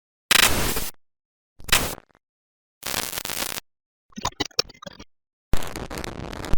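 A run of short digital glitch sound effects, bursts of static and electrical buzzing, one after another with dead silence between them; the fourth is a choppy, flickering crackle.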